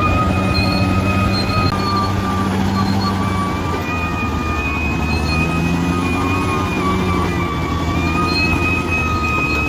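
Bulldozer's diesel engine running steadily under load, with a continuous high-pitched squeal over it that wavers slightly in pitch.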